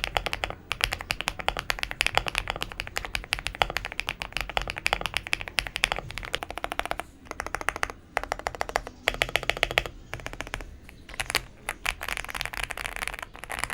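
Fast typing on a modded Zuoya GMK87 gasket-mounted mechanical keyboard with thick PBT keycaps: a dense run of keystroke clacks with a few brief pauses. The board is tape-modded and filled with foam and polyfill, giving a foamy sound.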